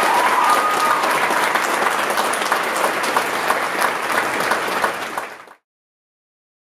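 Audience applauding with many dense claps, cut off suddenly about five and a half seconds in.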